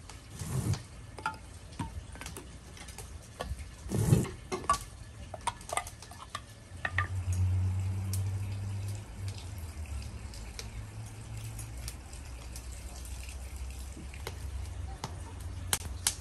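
A large glass jar of pickled cucumbers and tomatoes being opened and handled: scattered clicks and knocks of the metal lid and utensils against the jar, with the liquid of the brine. From about seven seconds in a low steady hum sits underneath.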